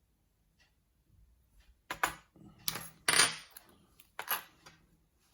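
Small metal parts of a disassembled dimple lock (pins, springs) clinking as they are handled and set down on a hard surface: a few sharp clinks, the loudest about three seconds in.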